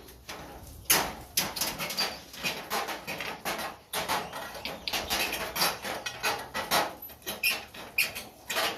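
Dense, irregular clicks, scrapes and light metallic clatter from a fluorescent light fixture being taken apart by hand for scrap.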